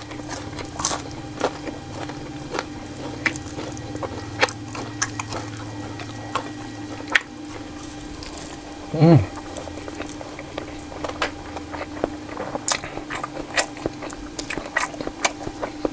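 Close-up eating sounds: chewing with sharp wet mouth clicks and smacks every second or so, from someone eating chewy meatballs with rice. A short hummed vocal sound comes about nine seconds in, over a faint steady hum.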